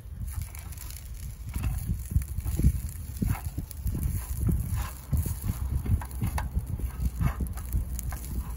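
A spatula stirring and scraping cooked rice in a frying pan on a portable gas camping stove: a series of irregular knocks and scrapes, roughly one or two a second, over a steady low rumble.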